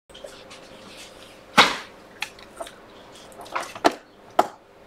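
Scattered light clicks and taps of small parts being handled on a bench: a bare phone logic board, metal tweezers and a phone housing picked up and set down, with one louder tap about a second and a half in.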